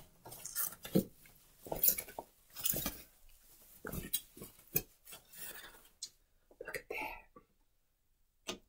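White packaging wrap rustling and crinkling as it is pulled off a cold-press juicer's plastic chamber set, with knocks and clinks of the hard plastic parts. The rustling is busiest over the first six seconds; a single sharp click comes near the end.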